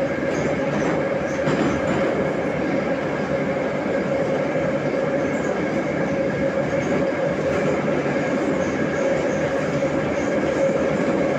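Metro train running at a steady speed, heard from inside the passenger carriage: a loud, even rumble with a steady whine on top.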